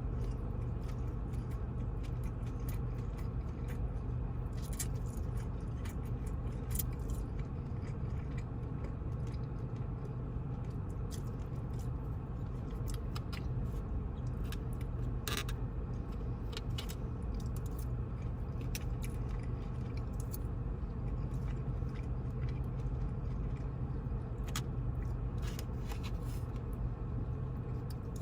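A person eating takeout chow mein and chicken: chewing, with scattered short clicks and crunches, over a steady low hum.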